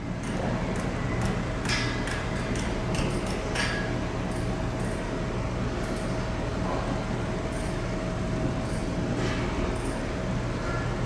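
City street ambience: a steady low hum of traffic, with a faint held tone and a few light clicks scattered through it.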